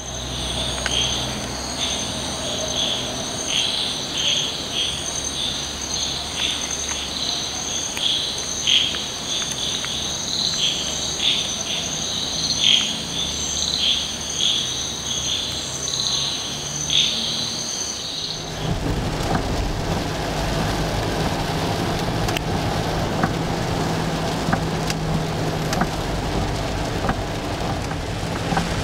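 Crickets and other insects trilling steadily in several high pitches, with short repeated chirps. About 18 seconds in, this cuts to the inside of a car driving in heavy rain: rain hitting the car over a steady low engine and road rumble.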